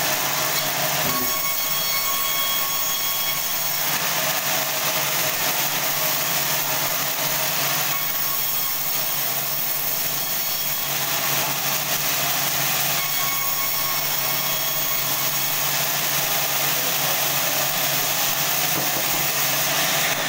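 Sawmill band saw running steadily, a continuous machine noise over a constant low hum.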